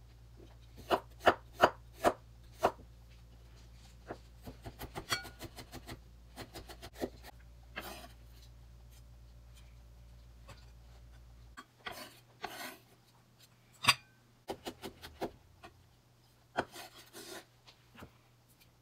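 Kitchen knife slicing radishes on a bamboo cutting board: a few sharp knocks of the blade on the board in the first few seconds, then lighter taps and the blade scraping across the board as the cut radish is gathered up.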